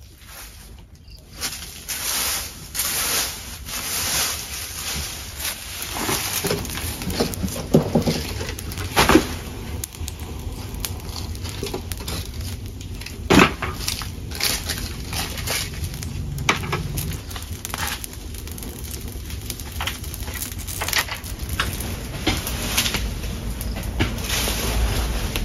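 Bonfire of garden waste, dry sticks and green leaves, crackling and popping, with a few sharp snaps and the rustle of debris being handled.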